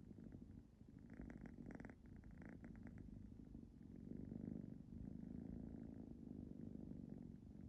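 Ragdoll cat purring softly and steadily, a fast low rumble, with a raspier breathy stretch from about one to three seconds in.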